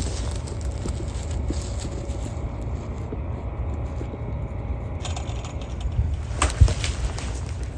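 Low wind rumble on the microphone outdoors, with a few scattered knocks and a sharper one about six and a half seconds in.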